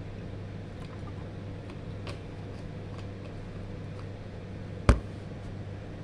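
A steady low hum with a few faint ticks, then one sharp knock about five seconds in as a cardboard milk carton is set down on the table.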